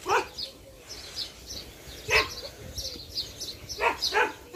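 Dogs barking: single short barks at irregular gaps, about five in all, two close together at the start and two more near the end.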